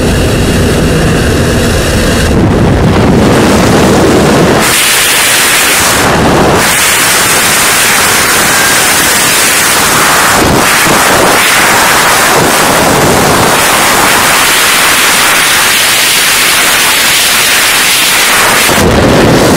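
A light aircraft's engine and propeller running at the open door for the first couple of seconds, then loud, steady freefall wind rushing over the microphone for the rest.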